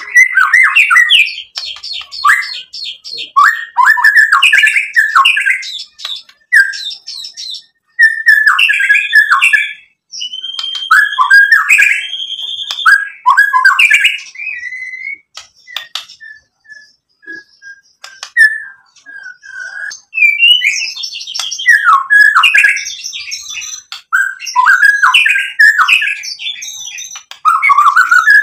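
Male white-rumped shama (murai batu) singing loudly: phrases of clear whistles and rapid chattering notes, broken by short pauses, with a quieter stretch of soft single notes about halfway through.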